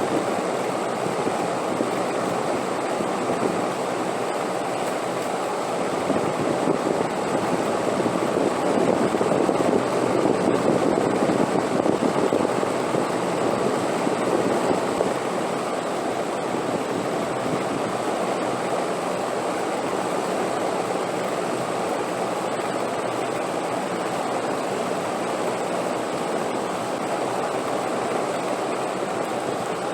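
Steady rushing wind, swelling louder for several seconds in the first half before settling back to an even level.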